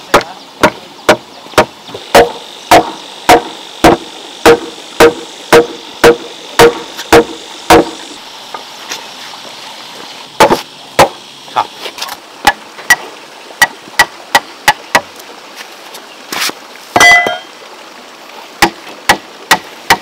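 Hammer driving a steel chisel into a timber post to cut a mortise: sharp, regular blows about two a second, a short pause, then more spaced strikes. Near the end comes one louder clatter with a brief metallic ring.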